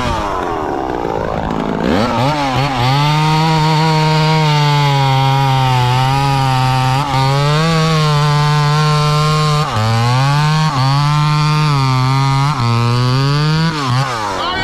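Two-stroke chainsaw climbing to full throttle after a short dip, then holding high revs. Its pitch sags briefly about three times in the second half, and the revs fall away at the end.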